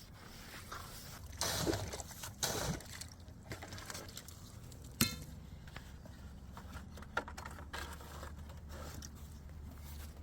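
Water sloshing and trickling in a flooded pipe trench, with two louder splashy surges about one and a half and two and a half seconds in and a sharp knock about five seconds in, over a steady low hum.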